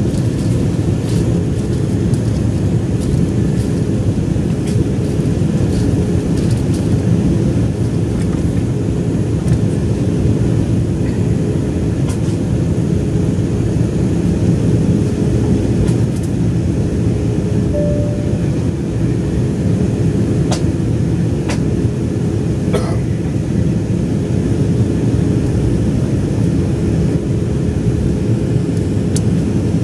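Cabin noise inside an Embraer 190 airliner taxiing: its CF34 turbofan engines hum steadily at taxi power under a low rumble, with a faint steady tone and a few light clicks.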